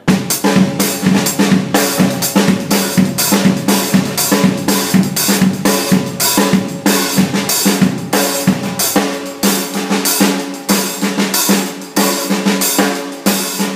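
Drum kit playing a steady soca groove: a fast run of snare strokes with accents and ghost notes over a bass drum pulse.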